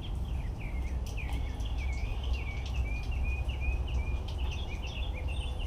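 A bird singing a long run of short, slurred, repeated chirps, the notes coming faster toward the end, over a steady low rumble.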